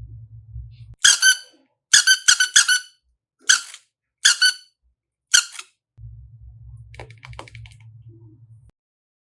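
A run of short, high-pitched squeaks, about six of them, one double and one triple, over a low hum that stops near the end.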